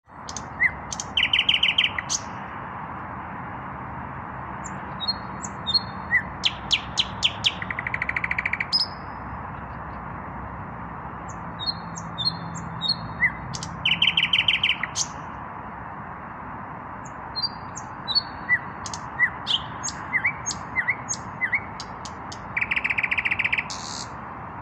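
Nightingale, a male, singing, still without a mate. The song comes in separate phrases with short pauses between them. The phrases mix rapid trills, strings of sharp clicks and short whistled notes.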